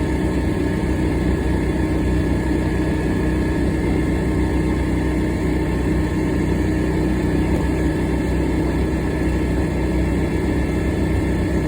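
Club Car DS golf cart's gas engine running steadily with an even drone, the cart under way on a test drive right after an overdue oil change.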